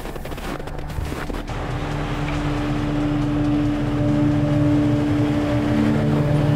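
Boots crunching through fresh powder snow for the first second or so, then background music swells in with sustained low chord tones that change near the end.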